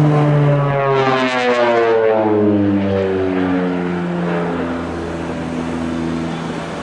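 North American Rockwell OV-10B Bronco's twin turboprop engines and propellers, a pitched drone that drops in pitch over the first few seconds as the aircraft passes and flies away, then fades somewhat.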